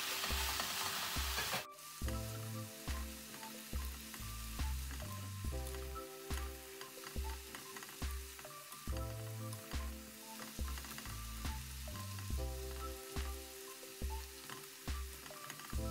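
Sliced cabbage and pork stir-frying in a hot pan, sizzling, with a plastic slotted spatula scraping and tapping against the pan as it is stirred. The sizzle is loud for the first couple of seconds, then drops suddenly and stays lower. Background music with a repeating bass line plays throughout.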